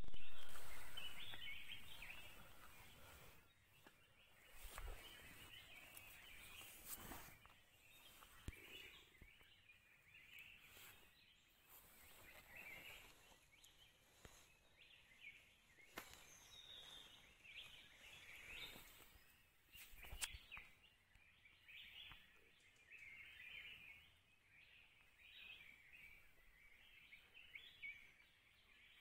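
Faint outdoor forest ambience with small birds chirping and calling on and off, and a few sharp clicks. A louder sound at the very start fades away over the first few seconds.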